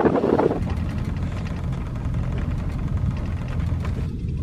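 Pontoon boat's outboard motor running steadily underway, a low, even hum. Gusts of wind on the microphone at the very start.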